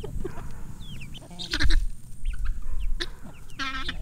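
Backyard chickens calling: a loud, rough squawk about one and a half seconds in and a shorter, nasal squawk near the end, with scattered high chirps between.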